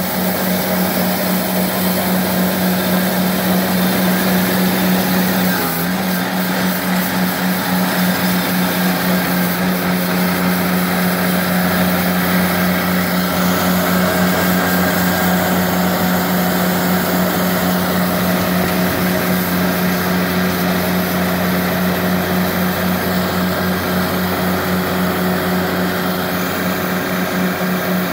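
A Walker MD mower's Kubota D722 three-cylinder diesel engine running steadily at working speed while its front rotary broom sweeps the concrete, with a hiss of bristles over the engine note. The engine speed dips briefly about six seconds in.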